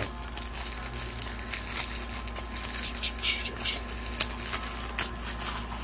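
Plastic DVD case being handled: irregular clicks and crinkly rustling of the plastic.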